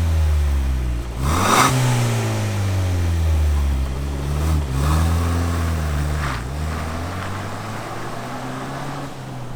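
Ford Bronco's turbocharged four-cylinder engine pulling away gently through an XForce Varex valved catback exhaust with the valve closed, a subdued exhaust note. The engine note climbs and drops back at each of three automatic-transmission upshifts.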